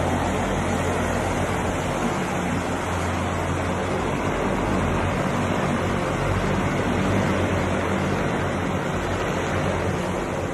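Military helicopter rotor and turbine noise: a steady, loud rush with a low hum underneath.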